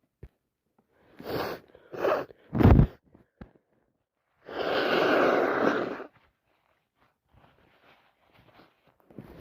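A person sneezing: two short breaths building up, then a sharp, loud sneeze a little under three seconds in, followed a couple of seconds later by a long rush of breath lasting about a second and a half.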